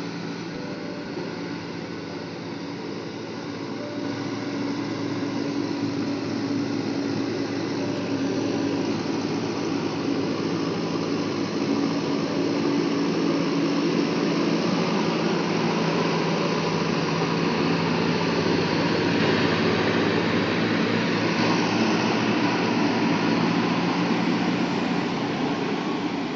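Diesel engine of heavy earth-moving machinery running steadily. Its level rises over the first several seconds and then holds.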